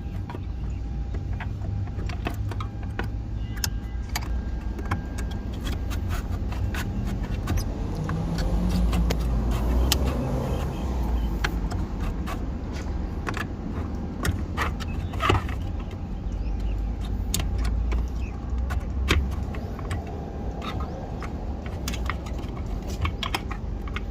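Scattered clicks, taps and light rattles of hand tools and interior trim parts being worked loose to reach the car's fuel pump, over a steady low rumble.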